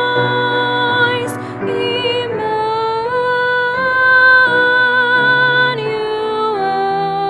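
A woman singing a slow Advent hymn solo in long held notes that step from pitch to pitch, with instrumental accompaniment.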